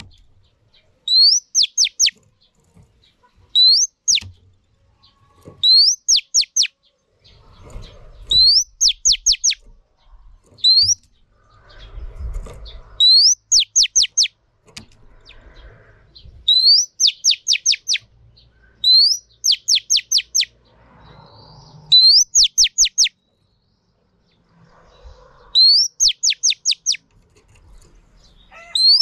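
Female oriental magpie-robin calling, one short phrase repeated about every two seconds: a rising whistle followed by three or four quick falling notes. This is the female's call that stirs male magpie-robins to sing.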